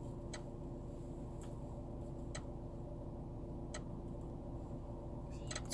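Steady low hum in a stationary Nissan Qashqai's cabin, with a few short sharp clicks roughly a second apart and two more near the end.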